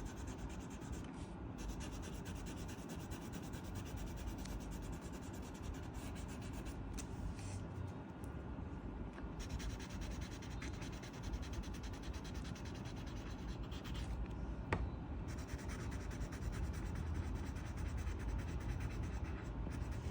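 Colouring on paper: a drawing tool rubbing and scratching back and forth across the page in steady strokes, with one sharp tap about fifteen seconds in.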